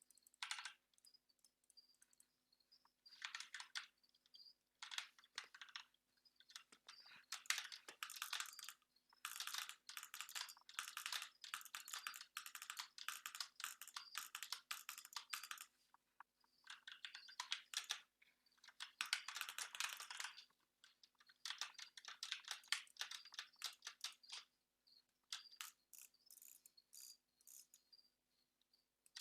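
Computer keyboard typing: rapid key clicks in bursts of several seconds, separated by short pauses, faint, over a low steady hum.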